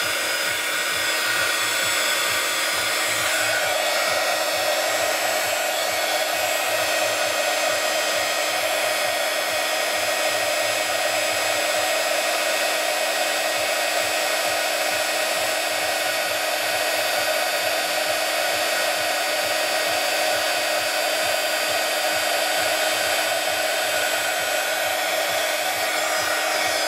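Handheld craft heat gun blowing steadily, a constant whir held over wet acrylic paint to dry it and make it bubble.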